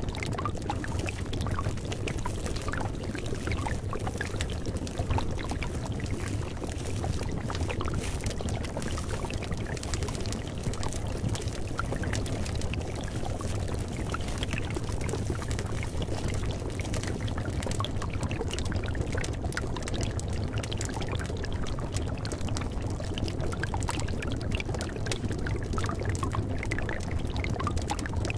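Steady rushing noise like running or pouring water, unchanging throughout, with a low steady hum underneath: the masking sound bed of a subliminal track.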